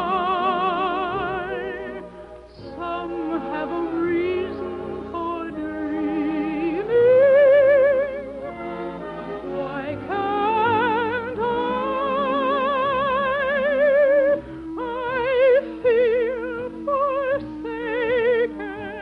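Operatic soprano singing a slow romantic ballad with wide vibrato over orchestral accompaniment, holding long notes, the longest from about ten seconds in to about fourteen and a half.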